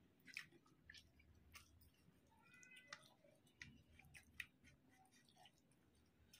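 Faint, scattered wet clicks and smacks of eating by hand: fingers mixing basmati rice with chicken curry on a plate, and chewing.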